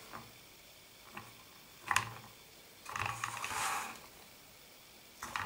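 Hard plastic clicks and handling noise from a Tamiya Spray-Work painting stand and the model car body held on it: a few separate clicks, the sharpest about two seconds in, then about a second of scraping rustle as the body and its holder are moved.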